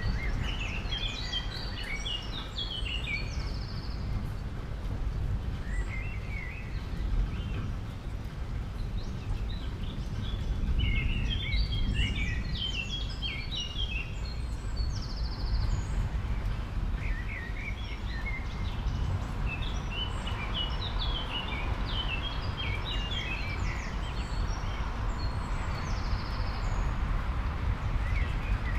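Small birds chirping in short bouts of quick, high chattering notes, every several seconds, over a steady low background rumble.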